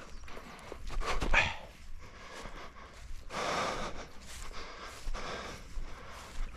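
Labrador retriever sniffing and breathing hard as it works a scent, in a few uneven rushes, the longest a little past halfway.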